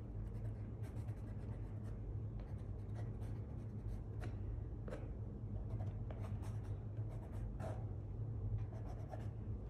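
White colored pencil scratching over ink-washed paper in many short, irregular strokes as highlights are drawn in, over a steady low hum.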